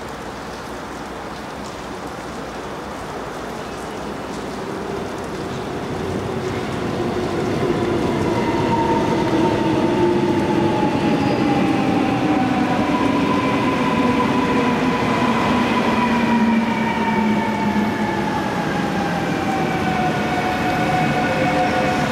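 Korail Class 351000 electric commuter train pulling into a station, growing louder over the first several seconds as it comes alongside. Several whining tones fall steadily in pitch as it slows for the stop, over the rumble of the wheels on the rails.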